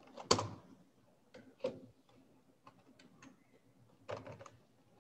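A few scattered computer keyboard keystrokes clicking, the sharpest about a third of a second in and a quick cluster of three or four near the end.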